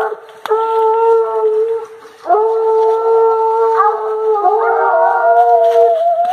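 Hunting hounds baying in long, drawn-out howls, with a short break about two seconds in. In the second half a second dog's voice overlaps the first.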